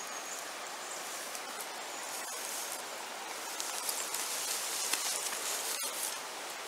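Shallow river water running over a stony bed, a steady rushing hiss, with two faint clicks about two and six seconds in.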